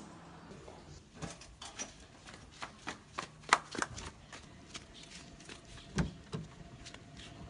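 Scattered light clicks and taps at an uneven pace, with a sharp knock about three and a half seconds in and a heavier, duller thump at about six seconds.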